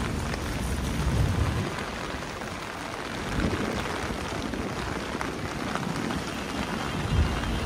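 Steady rain pattering on an umbrella, an even hiss with low rumbles that swell about a second in, around the middle and near the end.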